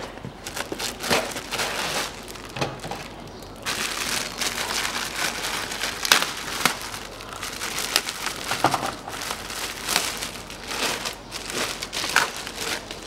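A new panel air filter being unpacked by hand: its cardboard box and plastic wrapping crinkle and rustle in an irregular run of crackles.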